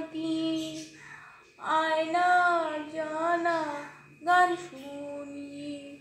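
A woman's voice singing a slow melody in long held notes that bend and glide in pitch, with short breaks between phrases.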